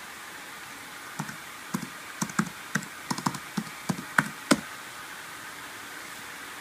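Typing on a 2006 MacBook Pro's built-in keyboard: about a dozen quick key clicks, entering a Wi-Fi password, stopping about four and a half seconds in.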